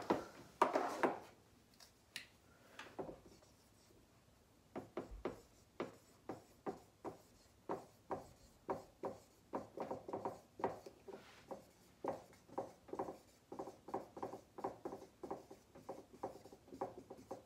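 Someone writing by hand: a run of short strokes, about two or three a second, starting about five seconds in after a few scattered knocks.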